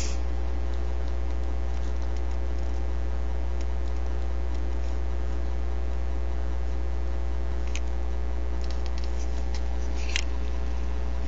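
Steady electrical hum on the recording, a low buzz with a ladder of even overtones that does not change. A few faint scratches and clicks come through it, with two sharper clicks in the second half.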